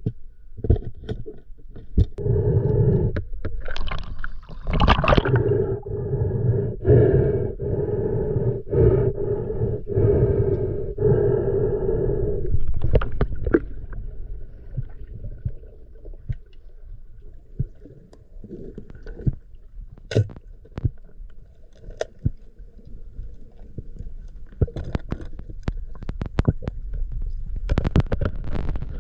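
Muffled underwater sound picked up by a submerged camera: a steady hum with overtones for about the first twelve seconds, then a lower rumble with scattered clicks and knocks.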